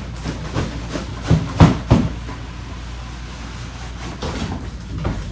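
Handling noises: a quick cluster of dull knocks and thumps about one and a half seconds in, over a steady low hum, with a few fainter clicks later.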